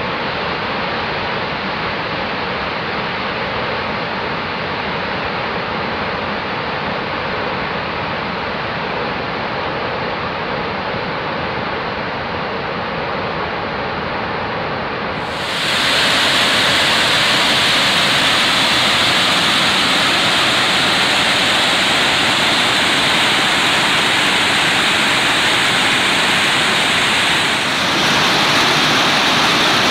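Steady rush of a waterfall's falling water. About halfway through it suddenly turns louder and brighter: white water rushing close by over boulders in a mountain stream.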